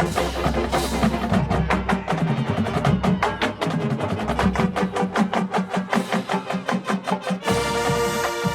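Marching band playing: a fast, even run of struck percussion and mallet notes over low drums, then about seven and a half seconds in the brass come in on a held chord.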